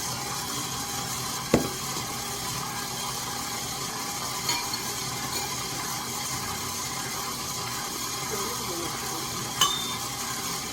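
Electric mixer running steadily while mixing cookie dough, with a sharp clink about a second and a half in and another near the end.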